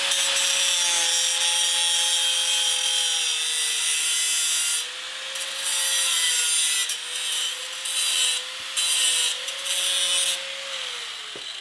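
Angle grinder with a thin cut-off disc cutting through a metal engine plate: a steady motor whine under the harsh hiss of the disc biting the metal. From about halfway the cut comes and goes in several short spells, and near the end the grinder is switched off and its whine falls away as it spins down.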